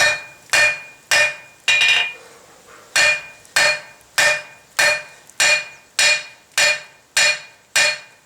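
Blacksmith's hand hammer striking hot mild steel bar on an anvil, about two blows a second, each with a bright ring; there is a short pause about two seconds in. The blows are flattening the end of the bar.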